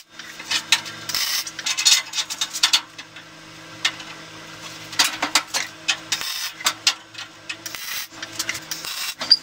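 Short crackling MIG tack welds on square steel tubing, between quick metallic clinks and clanks of steel spindles, a spacer block and clamps being set on a steel welding table, over a steady low hum.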